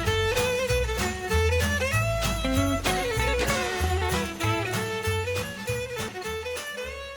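Background music: a melody over a heavy, regular bass beat, starting to fade out near the end.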